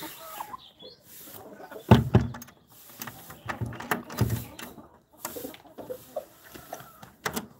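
Desi hens clucking now and then. A loud thump with rustling comes about two seconds in, followed by further knocks over the next couple of seconds and a sharp click near the end.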